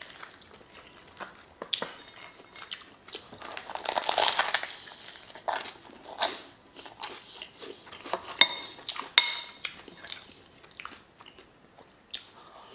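Close-up biting and chewing of a crusty baguette soaked in beef stew, with crisp crunches and wet mouth noises. Twice in the second half a metal spoon clinks sharply against the glass bowl.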